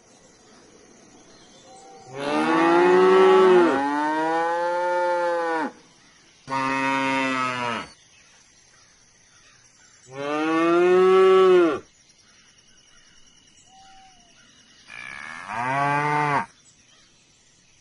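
Cows mooing: five long, drawn-out moos, each rising and then falling in pitch. The first two run into each other about two seconds in, and the others follow with pauses of one to three seconds between them.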